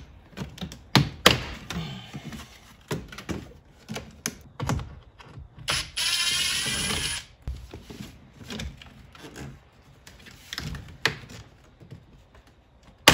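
Hard plastic dash trim clicking and knocking as a panel is pried and handled and its clips release. About six seconds in, a cordless driver whirs for about a second, backing out a T20 Torx screw.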